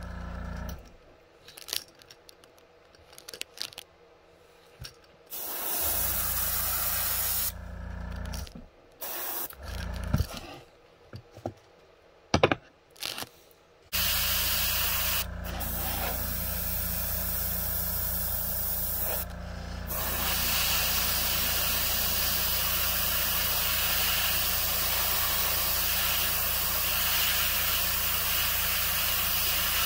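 Iwata Eclipse airbrush spraying paint: a hiss of compressed air and paint from the nozzle over a low steady hum. In the first half it comes in short bursts with quiet gaps and a few clicks, and from about halfway it sprays steadily.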